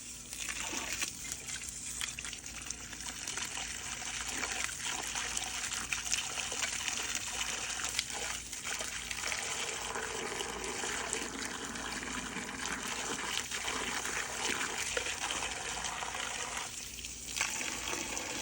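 Running water splashing as the chickens' water bowls are rinsed out and filled. It runs steadily, with short dips about a second in and near the end.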